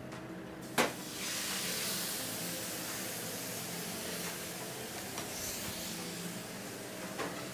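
Thin adobo-marinated pork steak laid on a hot flat-top griddle: a short knock about a second in, then the meat sizzling steadily as it sears.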